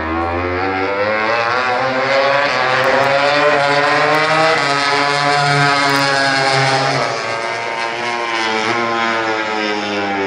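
Racing motorcycle's engine running hard on a circuit, passing by. Its pitch climbs over the first few seconds, drops about seven seconds in, then climbs again near the end.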